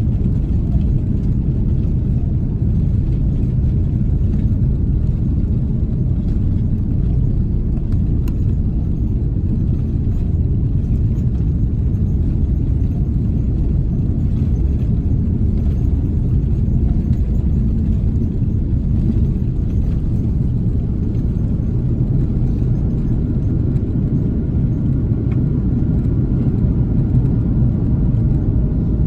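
Airbus A330 passenger cabin noise: a loud, steady low rumble of engines and airflow, loud enough that earplugs are wanted. Faint, steady higher-pitched hums join in during the later part.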